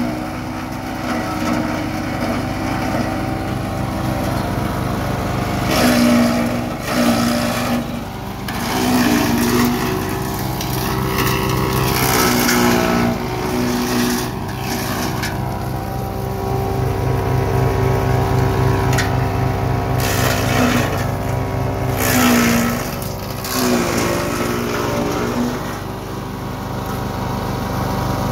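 Honda-powered GTM GTS 1300 petrol garden chipper/shredder running steadily. Repeated surges of shredding noise come as leafy branches are fed in, and during several of them the engine note dips briefly under the load.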